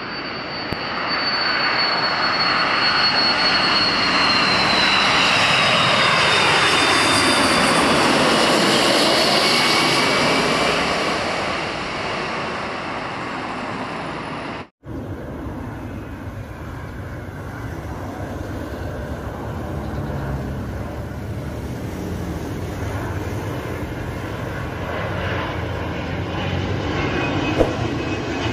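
Jet airliner passing low overhead on approach, its engine noise swelling to a peak and then fading, with a high engine whine sliding down in pitch as it goes by. After a sudden cut just before halfway, a steadier, quieter rumble continues.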